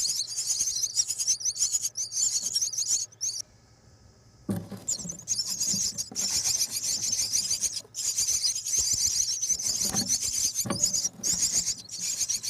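Nestling birds calling in a continuous high-pitched, rapid chatter. The calling cuts out for about a second a few seconds in, then resumes, with a few soft low bumps later on.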